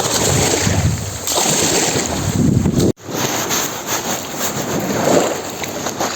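Waves on a large lake surging and washing onto the shore, with wind on the microphone. The sound cuts out for an instant about halfway through, then carries on.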